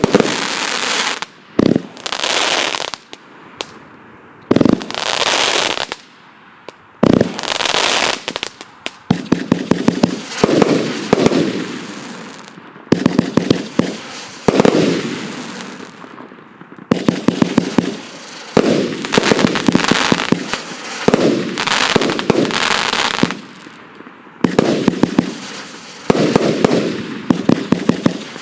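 A 138-shot firework cake of 1 to 1.2-inch shots firing, with a fan effect. A few single launches come first, and from about nine seconds in there are rapid volleys of many shots in quick succession. Each volley is followed by the crackling of the bursting stars.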